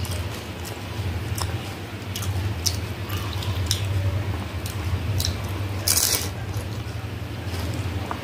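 Close mouth sounds of eating fuchka (pani puri): wet squishing and crunching as the crisp puri shells filled with spiced water are chewed, with scattered sharp clicks and a louder burst about six seconds in, over a steady low hum.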